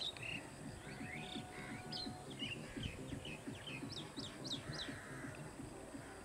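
Birds chirping: many short, high chirps in quick succession, denser about four seconds in, over steady low background noise.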